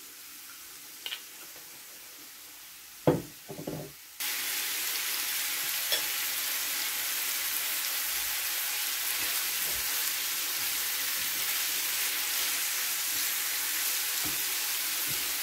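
Minced beef, onion and spices frying in oil in a frying pan: a steady sizzle that starts abruptly about four seconds in, stirred with a wooden spoon. A single knock comes just before the sizzle starts.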